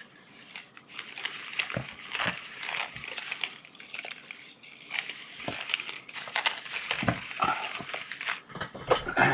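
Rummaging through a stash of heat-shrink tubing: irregular rustling, crinkling and small clicks as plastic pieces are handled and sorted, busiest near the end.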